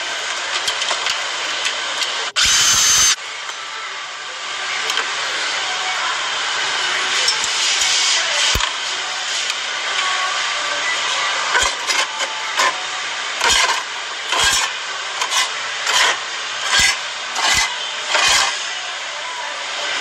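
Scraping and rubbing on the rusty sheet metal and burners of a gas furnace during cleaning, over a steady hiss. A loud burst comes about two and a half seconds in, and sharp knocks come about once a second in the second half.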